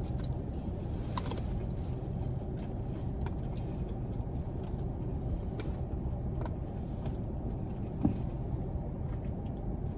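Steady low rumble of a car heard from inside the cabin, with a few faint clicks and a soft knock about eight seconds in.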